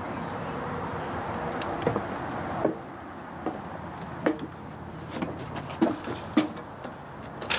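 Truck camper's entry door being opened, then footsteps down the metal entry steps and onto gravel: a run of irregular knocks and crunches, roughly one every half second to a second.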